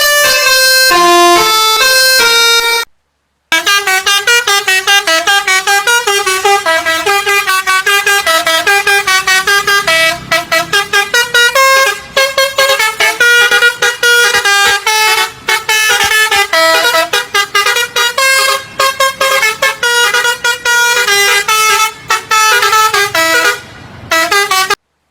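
Indonesian bus 'telolet' basuri musical horn playing a tune of short, stepping notes, with fast runs of notes in the second half. It cuts out briefly about three seconds in, then carries on.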